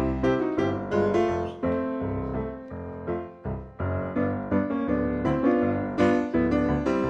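Piano music: a bright tune of quick, separately struck notes over chords and a bass line.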